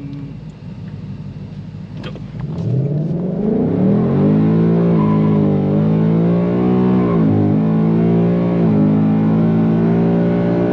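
2020 Ford Mustang GT's 5.0-litre V8 launching at full throttle for an eighth-mile acceleration run. About two and a half seconds in, the engine note sweeps up, then repeatedly drops back and climbs again through several upshifts.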